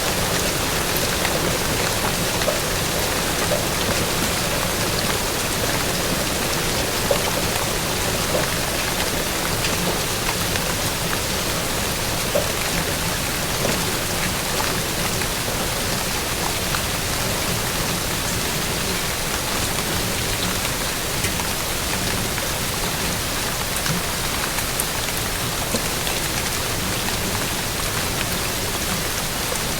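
Steady, even rainfall with scattered drops ticking, used as a meditation soundscape.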